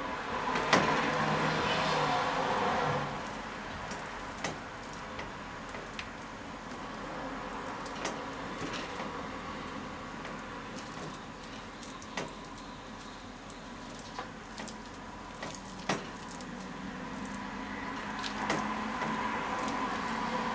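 Hands squishing and kneading bone-in beef short ribs in a wet flour coating in a stainless steel bowl, with scattered sharp clicks against the bowl. The squelching is heaviest in the first few seconds and grows again near the end.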